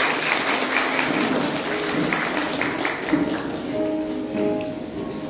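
Audience applauding, the clapping thinning out after about three seconds, over background music with held notes.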